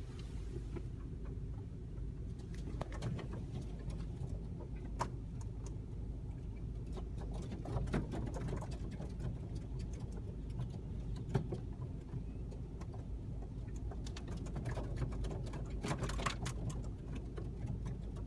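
A large flock of blackbirds calling, with many short, sharp chirps scattered throughout, over a steady low rumble.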